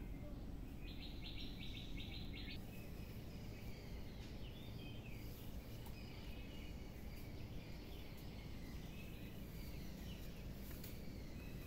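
Outdoor ambience: a steady low background noise with small birds chirping here and there. About a second in, a quick pulsed trill of some seven even notes lasts under two seconds.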